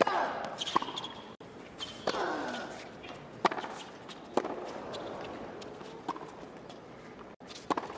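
Tennis rally on a hard court: a serve, then racquet strokes on the ball about every one to one and a half seconds, some seven hits in all. A player's short grunt comes with a couple of the strokes.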